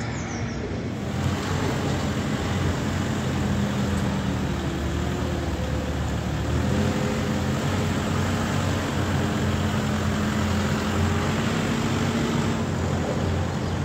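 Steady drone of diesel engines from heavy construction machinery at work, with a continuous rushing noise over it.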